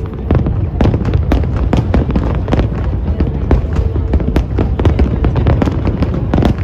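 Aerial fireworks shells bursting in a dense barrage, several sharp bangs a second with crackle over a constant low rumble.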